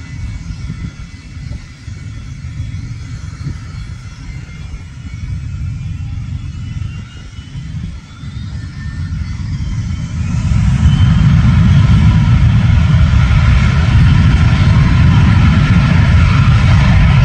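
Gulfstream G280's twin Honeywell AS907 turbofan engines running with a low rumble and a whine that rises in pitch. About ten seconds in, the engines spool up to takeoff power and the sound jumps much louder, then holds as a steady loud jet rumble.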